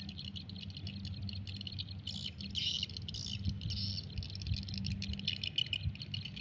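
Birds chirping in short repeated bursts over a steady low hum.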